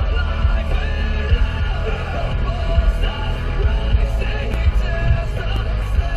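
Loud rock music with singing.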